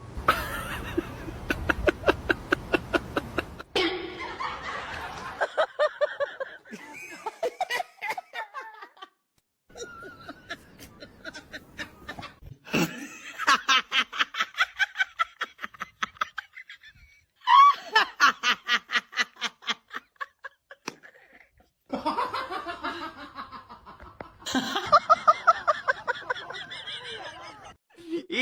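A person laughing in several bouts of rapid, breathy pulses, with short breaks between them.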